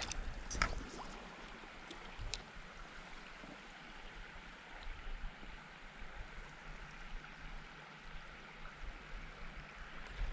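Creek water flowing: a steady, even rush, with a few faint clicks in the first couple of seconds.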